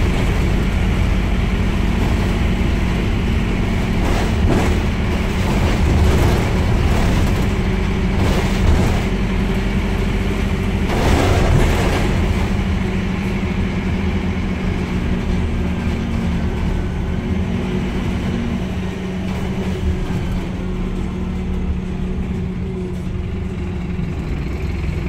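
Scania N230UD double-decker bus's diesel engine running steadily while the bus drives, heard from inside the passenger saloon, with low road rumble and a few knocks and rattles from the body in the first half. The engine note eases off about three quarters of the way through.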